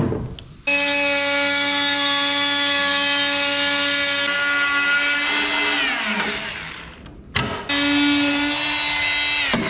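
Bosch random orbital sander running on plywood, switched off about five seconds in and coasting down with a falling pitch. It is started again a couple of seconds later and winds down once more near the end.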